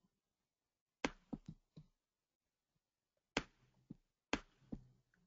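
Faint, sharp clicks of a computer mouse: a quick cluster of four about a second in, then four more spaced about half a second apart.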